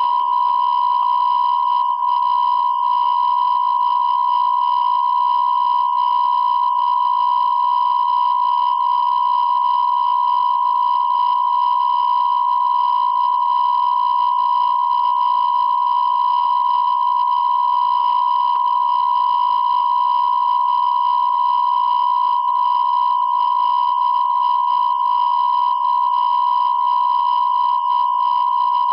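A steady electronic beep tone held unbroken at one pitch, like a test tone or censor bleep.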